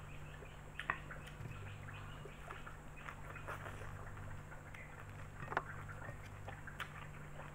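Close-up mouth sounds of eating spaghetti with raw kenikir leaves: a run of small wet smacks, chews and slurps as noodle strands are sucked in, with two louder smacks about a second in and about five and a half seconds in.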